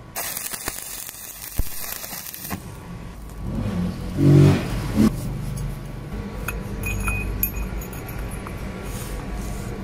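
Stick (arc) welding crackling for about two and a half seconds as a steel washer and bolt are welded to a tube, then cuts off. A dull thump follows about four seconds in, then a few light metal clinks as the welded parts are handled.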